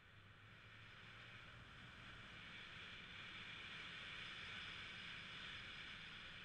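Faint, steady hiss of a motor scooter ride, wind and road noise on the move, growing slightly louder through the middle and easing off near the end; the engine itself is barely heard.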